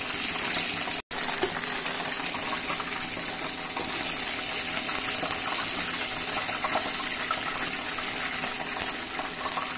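Hot oil sizzling steadily in a frying pan after deep-frying chicken lollipops, with a brief dropout about a second in.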